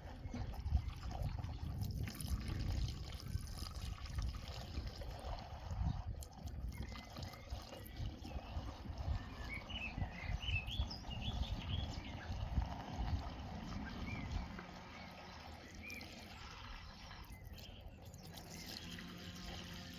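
Gasoline trickling as it is poured from a container into a petrol lawn mower's fuel tank; the pouring stops about three-quarters of the way through.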